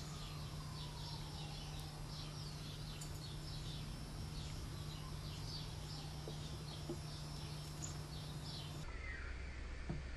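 A flock of cedar waxwings giving many high, thin calls over and over, against a steady low hum. Near the end the sound cuts abruptly to lower-pitched bird calls.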